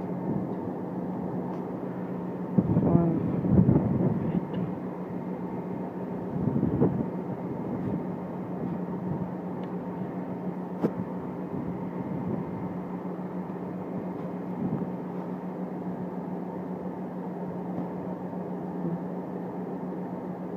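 Adelaide Metro A-City 4000-class electric multiple unit standing at the platform, a steady electrical hum from its onboard equipment. A couple of brief louder sounds rise over it about three and seven seconds in.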